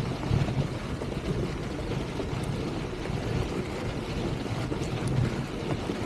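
Wind buffeting the microphone of a camera on a moving mountain bike, a fluttering rumble, over the tyre noise of a Polygon Siskiu rolling on a loose dirt trail.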